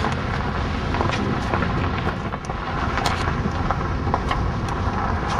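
Steady rumbling noise of a car driving, heard from on board, with scattered light knocks and wind buffeting the microphone.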